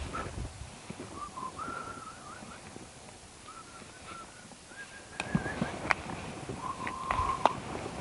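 A faint, wavering whistled call, like a bird's, comes and goes again and again. From about five seconds in there are several sharp clicks and knocks, with grass rustling.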